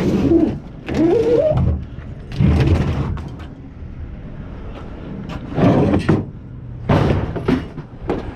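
Scrap metal being dumped off a truck onto a scrap pile: a series of irregular clanking and scraping crashes, with a short rising metallic squeal about a second in.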